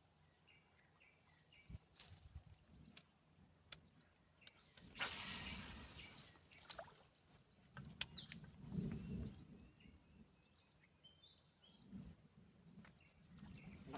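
Quiet outdoor background with faint bird chirps, scattered sharp clicks and low handling noise. A brief rushing noise about five seconds in is the loudest sound.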